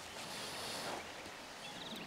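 Faint seaside ambience: a soft wash of hiss that swells about half a second in and fades away, like a small wave running up a sand beach.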